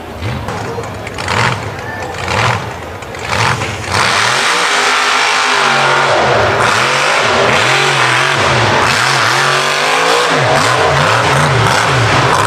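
Mega truck's engine revving hard on a dirt obstacle course, its pitch rising and falling again and again as the throttle is worked. It turns loud about four seconds in, and the swings come quicker near the end.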